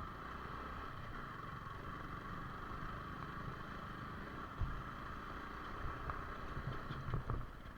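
Yamaha R15 V4 motorcycle riding over a rough dirt track: steady engine and riding noise, with a few thumps from bumps about halfway through and near the end.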